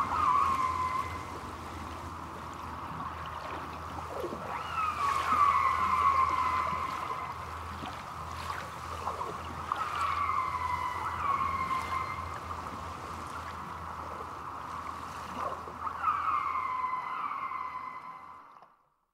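Killer whale calls picked up underwater on hydrophones: clusters of falling, whistle-like calls every few seconds over a steady wash of water noise. The recording fades out near the end.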